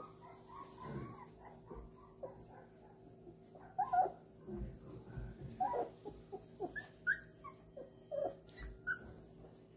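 Four-week-old golden retriever puppies whimpering and yipping in short, high cries, scattered and more frequent from about four seconds in.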